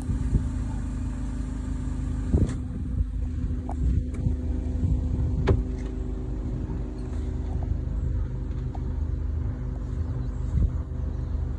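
Motor cruiser's inboard engine running steadily under way, a low hum with an uneven rumble beneath it. Two sharp knocks stand out, about two and a half and five and a half seconds in.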